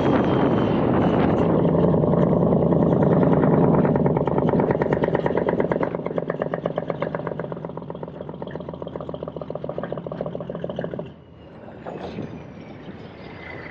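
Diesel semi-truck engine running under load. From about six seconds in it takes on a fast, even pulsing, then drops away abruptly about eleven seconds in.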